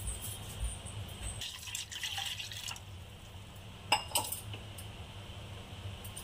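Water poured from a glass into a bowl for about a second, followed a little later by two sharp knocks a moment apart.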